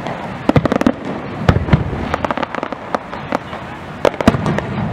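Aerial fireworks shells bursting: clusters of sharp bangs and pops, the loudest coming about half a second in and again about four seconds in, over a steady background hiss.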